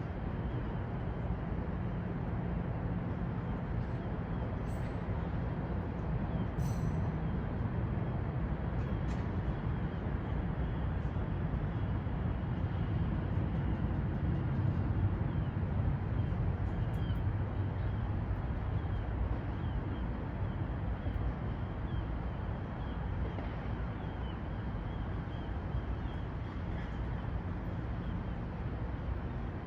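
City ambience: a steady low rumble of distant traffic, with a few faint ticks.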